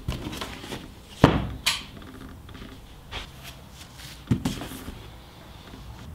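Several knocks of objects being set down on a wooden desk: two sharp ones about a second in, a light one around three seconds, and another pair just past four seconds.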